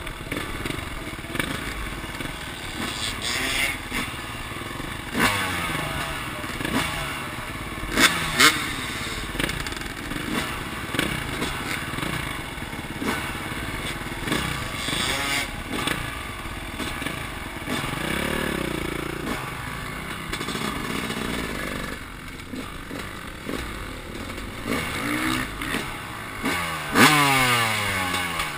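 Dirt bike engine heard close up from on board during freestyle stunt riding, revving up and falling back again and again. Sharp knocks and clatter from the bike come through, the loudest about eight seconds in and near the end.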